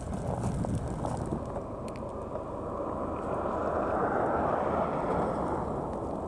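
Vehicles running on a snow-covered street with wind blowing, a steady rumble that swells louder in the second half as an SUV drives toward the microphone.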